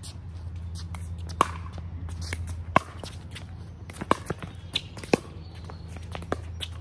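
Pickleball paddles hitting a plastic pickleball back and forth in a rally, with its bounces on the hard court: about seven sharp pops, several in quick succession near the middle, over a steady low hum.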